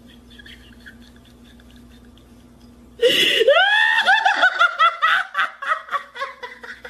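A person laughing: muffled, stifled laughter at first, then about three seconds in a sudden loud, high-pitched burst of laughter in quick pulses that gradually die away.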